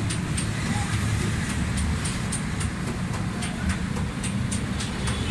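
Steady low rumble of motor traffic, with a run of short, sharp high-pitched clicks several times a second over it.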